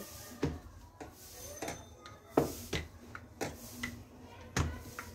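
Wooden rolling pin rolling out a stuffed paratha on a rolling board: a soft rubbing with about six irregular light knocks and clicks as the pin and board shift.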